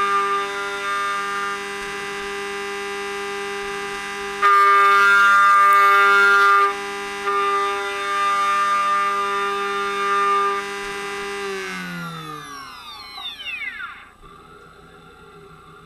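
Machine-tool spindle motor whining steadily at a high pitch, louder and rougher for a couple of seconds near the middle, then winding down, its pitch falling smoothly until it fades to a faint hum about two seconds later.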